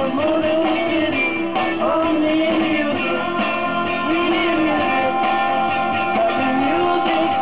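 A rock song with singing, played from a vinyl record on a Fidelity HF45 record player.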